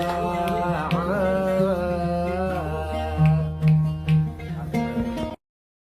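Arabic song: a voice sings a long, wavering note over plucked string instrument notes. The music stops abruptly near the end.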